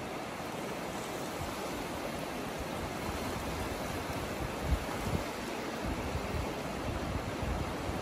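Small waves lapping and washing in over a shallow shore: a steady, even wash of sea. A couple of brief low thumps stand out near the middle.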